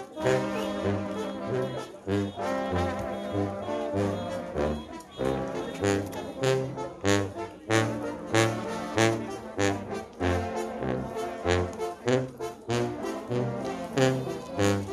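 Mexican banda (brass band) playing: trombones and trumpets over a bass line in short pulsing notes, with regular drum and cymbal hits.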